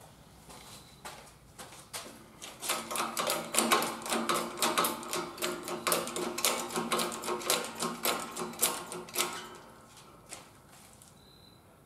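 Hydraulic bottle jack of a 20-ton shop press being pumped by hand to press a bent pallet jack beam straight: a fast run of metallic clicks and rattles for about seven seconds, then stopping.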